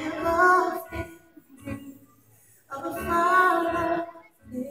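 A high singing voice, two held phrases separated by a pause of about two seconds.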